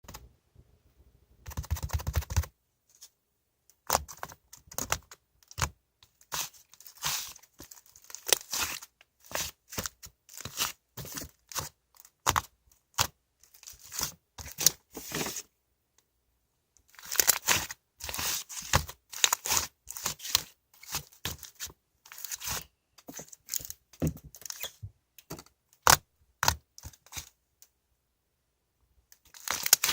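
Slime being squished, stretched and poked by hand, giving irregular crackling, popping and tearing sounds in quick bursts, with a few short pauses.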